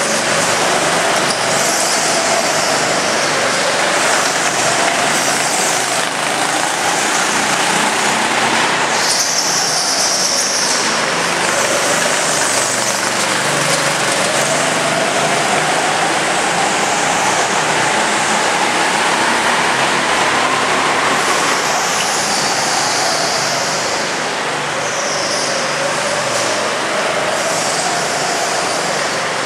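Go-kart engines running hard on an indoor track: a loud, steady engine noise whose pitch climbs slowly over several seconds as a kart accelerates, then drops back as it slows, more than once.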